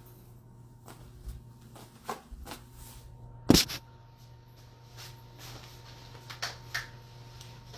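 Scattered light taps and clicks with one sharp knock about three and a half seconds in, over a steady low hum.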